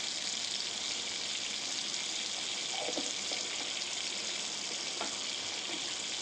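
Butter and ghee sizzling steadily as they melt and bubble in a hot kadai, with a couple of faint pops about three and five seconds in.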